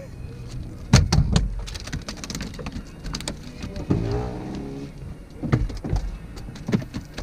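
Thuds and knocks on a boat's deck as a caught white bass is kicked across the floor, the loudest cluster about a second in, with a few more sharp knocks later.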